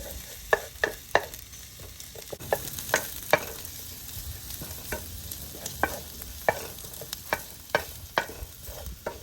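Garlic, ginger and green chili frying in oil in a pan with a low sizzle, while a spoon stirs them, scraping and tapping the pan in irregular clicks.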